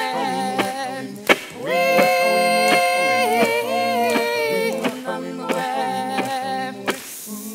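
A singer holding long, drawn-out notes in a song over backing music, with a short break just after one second in before the next long phrase.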